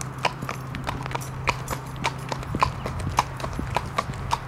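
A horse's hooves clip-clopping on a hard floor: a string of sharp, uneven clicks, several a second. A steady low hum sits underneath and fades out about three seconds in.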